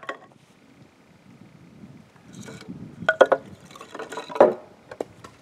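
Split sticks of firewood knocking and clattering against each other as they are picked through by hand, with a cluster of sharp knocks about three seconds in and a louder one about a second later.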